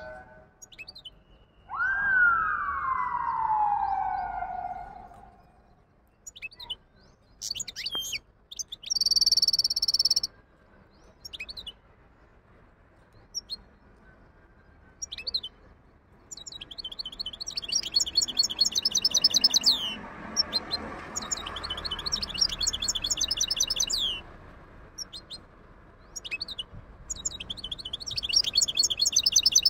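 Goldfinch hybrid singing in its cage: scattered short chirps, then long runs of rapid high trills twice in the second half. A loud smooth falling whine sweeps down about two seconds in.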